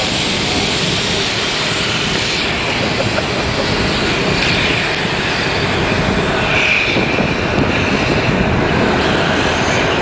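Blackpool Balloon Car 706 double-deck tram running on its rails: a steady rumble and rush of wheel and track noise.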